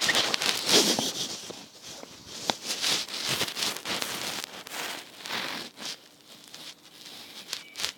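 Crackling, rustling noise with scattered sharp knocks from a horse walking on an asphalt road, recorded from the saddle. The noise is loudest in the first second, then fades and swells irregularly.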